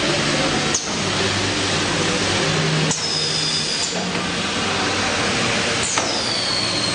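GH-6030AH sleeve sealer and SF-6040E shrink tunnel running with a steady mechanical noise. A sharp click comes about every three seconds, and the later ones trail off in a brief high whine that falls in pitch, in time with the sealer's wrapping cycle.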